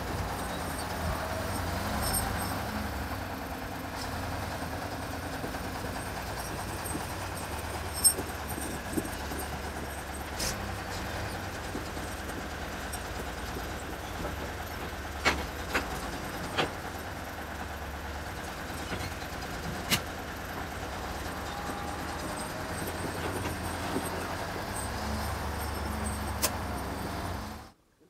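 Diesel engine of an old Volvo wheel loader running steadily as the machine manoeuvres, with a few sharp clanks along the way. The sound cuts off abruptly just before the end.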